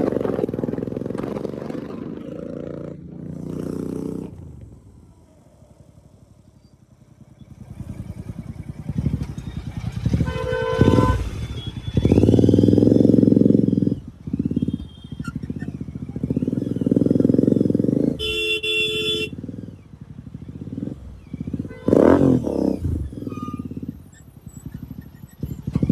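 Royal Enfield Continental GT650's parallel-twin engine running through a Red Rooster Performance aftermarket exhaust, revving and pulling away on the road in repeated swells with a quieter lull near the start. A horn sounds briefly twice, about 11 and 18 seconds in.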